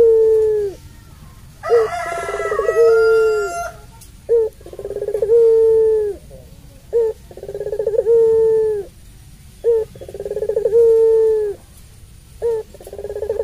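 Puter pelung, a long-voiced Barbary (ringneck) dove, cooing over and over: each call is a short note followed by a long drawn-out coo, repeated about every two and a half seconds. A brighter, higher-pitched call overlaps one coo about two seconds in.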